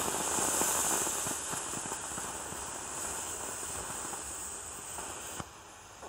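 Firework rocket on the ground hissing as its fuel burns and pours out smoke without lifting off, with scattered small crackles. The hiss is strongest at first, slowly fades and drops off sharply about five seconds in.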